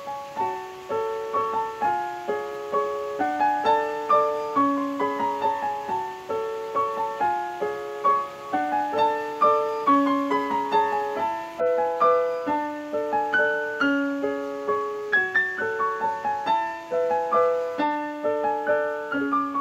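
Background music: piano playing a flowing run of notes, each struck and left to fade, at a steady pace.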